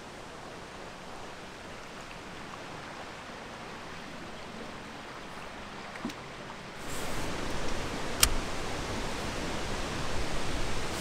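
Steady rushing noise of flowing shallow creek water. It gets louder about seven seconds in, and a single sharp click comes about a second after that.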